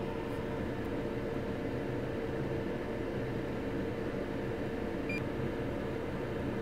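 Steady hum of running bench equipment, with a constant mid-pitched tone, and one short high beep about five seconds in.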